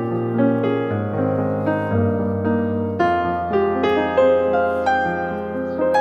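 Background instrumental music: a gentle melody of struck notes over held bass notes that change every second or so.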